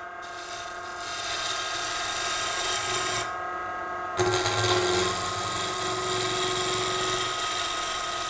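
Record Power Coronet Herald wood lathe running, with a spindle roughing gouge cutting a spinning spindle blank: a steady motor hum under the hiss and rasp of shavings coming off the wood. The cutting hiss stops for about a second a little past three seconds in, then comes back louder.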